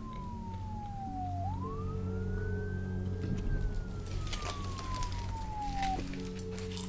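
A wailing siren: a single tone falls slowly, sweeps back up about a second and a half in, holds, then falls again and stops about six seconds in, over a steady low hum.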